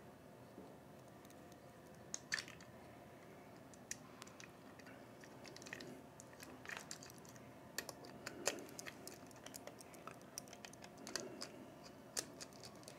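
Faint, irregular small metal clicks and taps as wire lugs are fitted onto the brass terminal studs of a compressor's terminal board and the nuts are run down with a nut driver.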